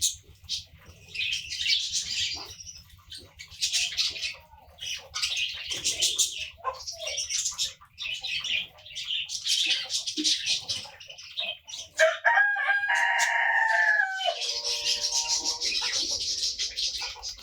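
Small birds chirping and twittering in repeated bursts, with a rooster crowing once about twelve seconds in: a long call that falls in pitch, followed by busy chirping.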